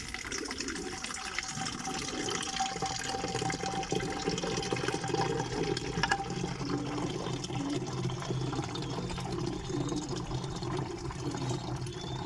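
Water running steadily into a plastic pigeon drinker as it is filled.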